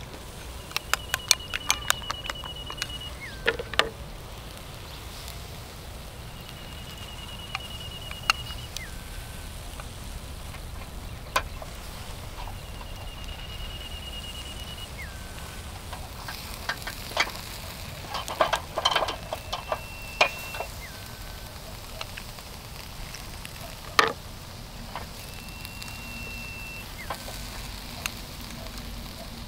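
Octopus skewers sizzling over a charcoal grill, with scattered sharp clicks and crackles. A bird repeats the same short trilled call, followed by a lower falling note, five times, about every six seconds.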